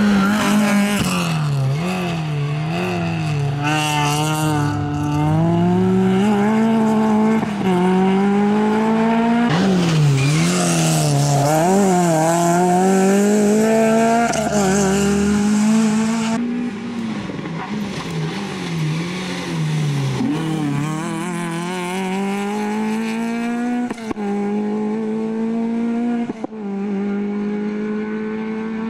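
Peugeot 306 rally car's engine revving hard under full throttle, its pitch climbing and then dropping sharply again and again at gear changes and lifts for corners.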